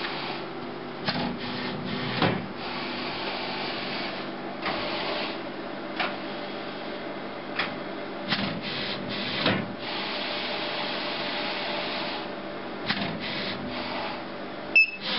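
HP DesignJet Z3200 photo printer's paper-feed mechanism drawing a cut sheet in from the input tray: a steady whirring and rubbing of rollers and motors, broken by clicks and knocks as the mechanism moves, with a loud click near the end. The sheet is going in square enough to load first time.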